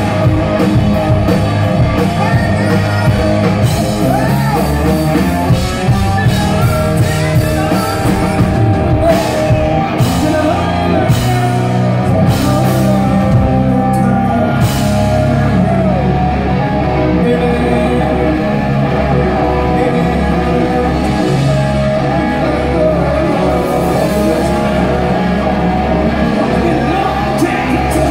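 Live rock band playing: a male lead singer over electric guitars, bass guitar and a drum kit. Loud and continuous, as heard from within the audience in a large hall.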